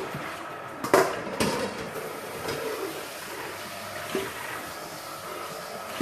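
Water running in a kitchen sink while chicken is washed, with a sharp knock of a bowl or dish about a second in and a couple of lighter knocks later.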